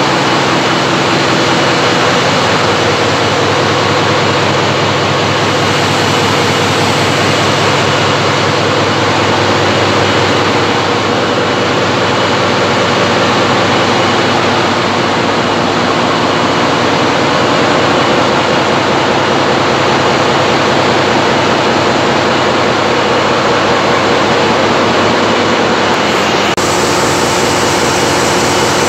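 Loud, steady drone of large diesel generator engines running in an engine room, with a dense stack of steady engine tones over a roaring haze.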